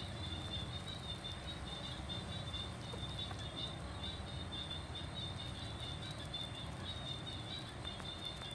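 Steady high-pitched chirring of insects, cricket-like, pulsing continuously over a low background rumble.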